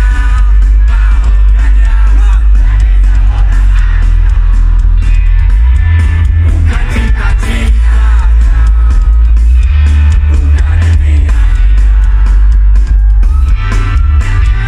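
Live rock band playing loudly through a PA, with sung vocals over guitars and a heavy, boomy bass.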